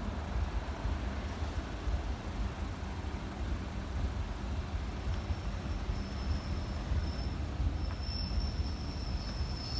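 Passenger train rolling past with a steady low rumble; a thin, high, steady wheel squeal comes in about halfway and grows louder near the end.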